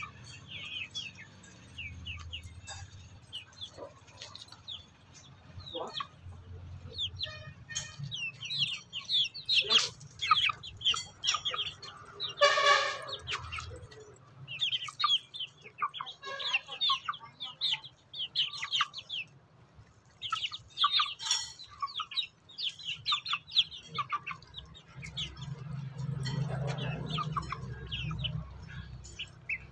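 A flock of young chickens pecking rice off bare dirt: quick, sharp beak taps and soft clucks. One louder cluck comes about twelve seconds in.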